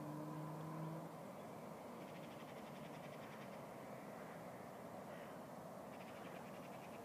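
Faint open-air ambience on a hillside. A steady low hum stops about a second in, and two short bursts of rapid rattling chatter, like a bird's call, come about two seconds in and again near the end.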